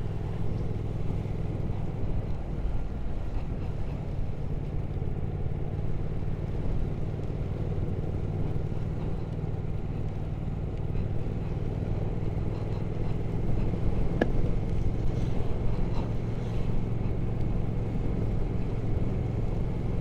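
Triumph Speed Twin 1200 parallel-twin engine running at a steady riding pace, with wind and road noise over it; it gets a little louder about fourteen seconds in.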